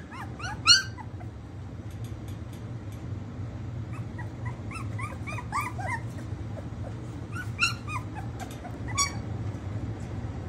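A litter of young Akita puppies whimpering and yipping in short, high-pitched cries that come in three bursts: right at the start, around five seconds in, and again near eight to nine seconds.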